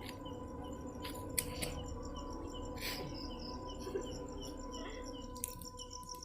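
Night insects such as crickets chirping in short calls repeated about three times a second, over a steady thin drone. A few brief clicks are scattered through it.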